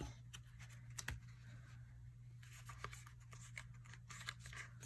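Faint rustling and soft clicks of paper sticker-book pages being leafed through and handled, over a steady low hum.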